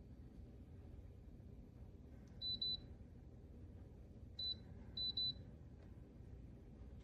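Short, high electronic beeps from a Dreo humidifier's control panel, a quick cluster about two and a half seconds in and another cluster around four and a half to five seconds in, over a low steady hum.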